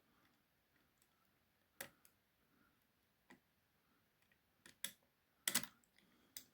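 Sparse small metallic clicks from steel pick wires and a tension tool working the levers of an ERA 5-lever mortice lock, mostly quiet between them: a single click about two seconds in, then a cluster of sharper clicks near the end.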